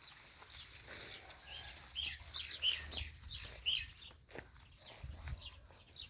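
Small birds chirping in quick, short, high calls, thickest in the middle, with scattered clicks and rustles.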